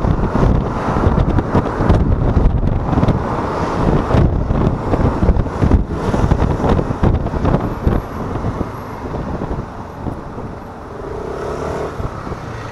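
Wind buffeting the microphone while riding a 125cc Yamaha XMAX scooter, mixed with road noise. The buffeting eases after about eight seconds.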